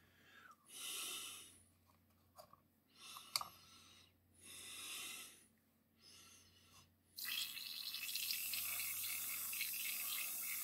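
Gravity-feed airbrush spraying paint. Several short puffs of hiss with a sharp click in between, then a steady spray from about seven seconds in.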